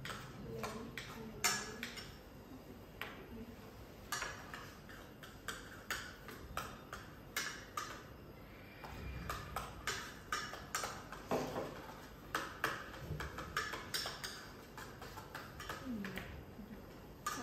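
A metal utensil clinking and scraping against a stainless steel pot as a mixture is stirred to dissolve it, giving irregular sharp clicks.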